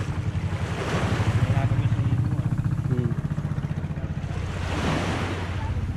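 Outrigger boat's engine idling with a steady, rapid low chugging, joined about a second in and again near the end by a swell of rushing surf-like noise. Faint voices come through in between.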